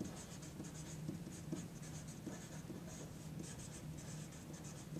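Felt-tip marker writing on a sheet of paper, a faint run of short strokes as letters are drawn.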